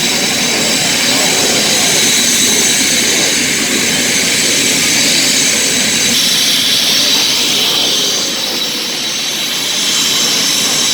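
Twin afterburning turbofan engines of an AIDC F-CK-1 Ching-kuo (IDF) fighter running loud and steady in a display pass, with a high whine over the jet noise. The whine's pitch shifts about six seconds in, and the sound dips slightly a couple of seconds later.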